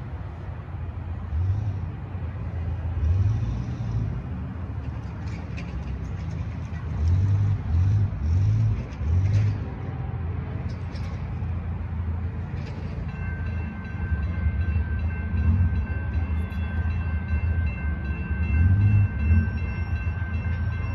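Approaching freight trains' horns blowing several blasts, low and distant, over a steady rumble. About two-thirds in, the grade-crossing warning bell starts ringing steadily as the crossing activates and the gates come down.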